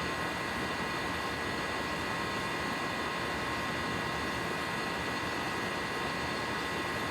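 Goodman GSZ14 heat pump outdoor unit running steadily: an even rushing noise with a faint steady whine over it.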